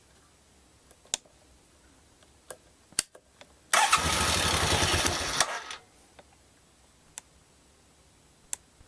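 1990 Suzuki VX800 V-twin turned over on its electric starter for about two seconds, then cut off, to let oil fill the new, still-empty oil filter before it is allowed to run. A few light clicks are heard before and after.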